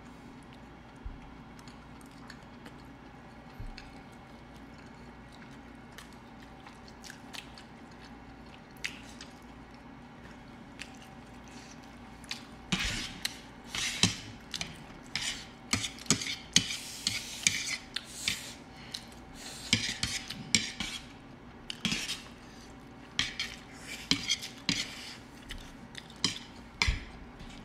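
Chopsticks and forks clinking and scraping against ceramic plates as food is picked at and stirred. The sound is sparse at first, then busier from about halfway through.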